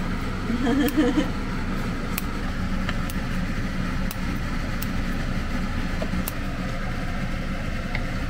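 Kimchi and garlic cooking in oil in a pot: faint scattered crackles over a steady low hum and rush, with a short louder sound about a second in.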